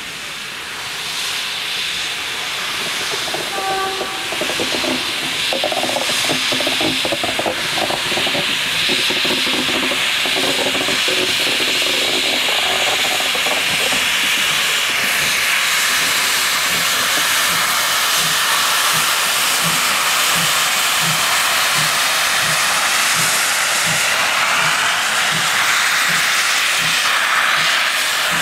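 Class 50 steam locomotive blowing steam from its open cylinder drain cocks: a loud, steady hiss that swells over the first few seconds. Through the second half a low beat comes about twice a second.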